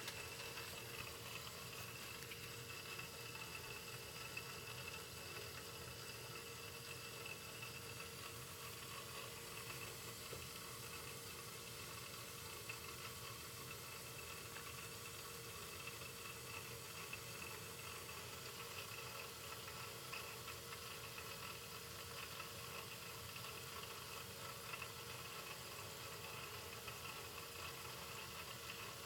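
Taco 007-F5 cast-iron wet-rotor circulator pump running with a faint, steady hiss and a thin steady tone: the odd noise its owner is unsure is normal.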